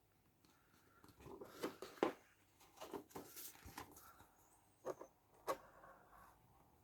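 Faint rustling and crinkling of paper leaflets and card packaging being handled, in short scattered bursts, with two sharp clicks near the end.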